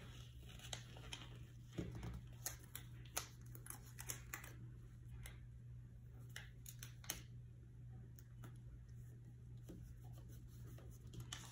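Faint paper rustling with scattered small clicks and taps as planner stickers are peeled off their backing and pressed onto a paper planner page, over a low steady hum.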